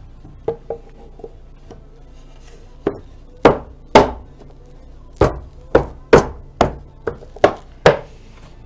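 Hand striking a cherry jewelry-box top to seat it onto the box: three light taps, then about ten sharp wooden knocks roughly half a second apart.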